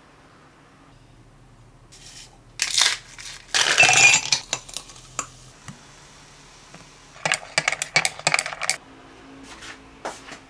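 Hard objects clinking and clattering, in two busy spells of sharp knocks, about a quarter of the way in and again past the middle, with a few lone clicks near the end.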